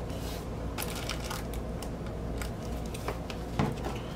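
Crinkling and rustling of a clear plastic record sleeve and shrink-wrapped LP jacket being handled, with scattered light clicks and a louder tap near the end. A steady low hum sits underneath.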